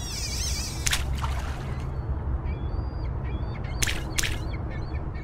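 Steady rushing of sea surf with birds calling over it, and a few brief hissing sounds.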